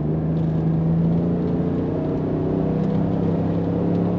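A 2022 Toyota Tundra's twin-turbo V6 pulls under throttle through a MagnaFlow Overland cat-back exhaust, heard from inside the cab. The engine note steps up in pitch at the start, then climbs slowly and steadily as the truck accelerates.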